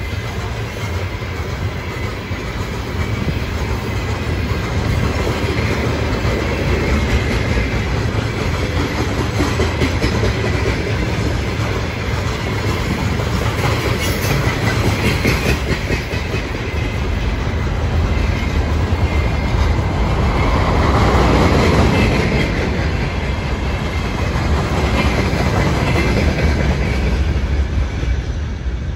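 Freight train of open-top gondola wagons rolling past at close range: a steady rumble with the clatter of steel wheels on the rails. It swells louder for a couple of seconds about two-thirds of the way through.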